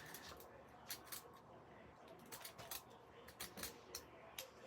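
Lockpicking ripple rake being worked in and out of a lock: faint, irregular metallic clicks and scrapes.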